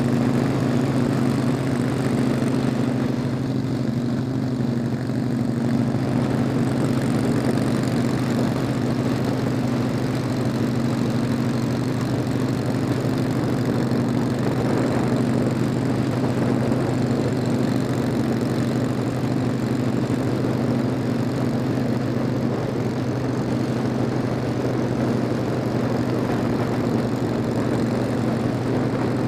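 Motorcycle engine running at a steady highway cruise, holding a constant low drone, with wind noise on the microphone from the speed.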